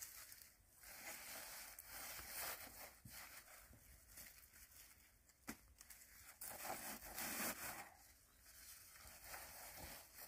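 Faint rustling and tearing of radish greens being pulled and handled in gloved hands, with one sharp click about halfway through.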